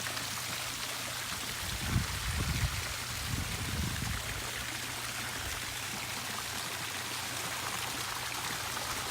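Garden pond waterfall and fountain splashing steadily, with a faint steady low hum under it. A low rumble rises from about two seconds in and fades by about four seconds.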